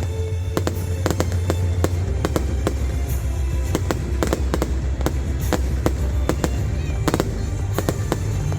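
New Year fireworks going off: a rapid, irregular run of sharp bangs and cracks, several a second. Background music with steady bass notes plays under them.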